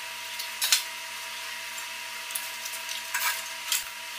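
A few sharp metal clinks as hand tools and fender hardware are handled, over a steady hiss with a faint hum.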